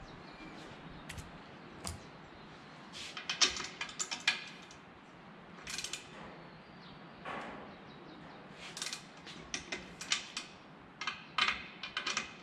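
Sharp metal clicks and clinks of a hand wrench working the clamping bolts on a propeller hub, coming in short runs of several quick clicks with pauses between.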